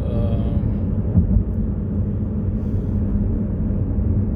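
Steady low rumble of a car driving along: road and wind noise heard from inside the moving vehicle.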